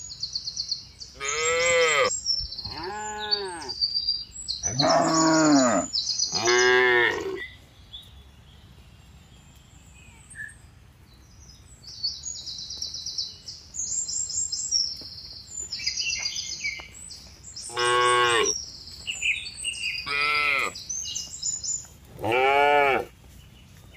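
Herd of zebu-type cattle mooing: about seven long calls, each rising then falling in pitch. Four come close together in the first seven seconds, then after a lull three more come from about eighteen seconds on.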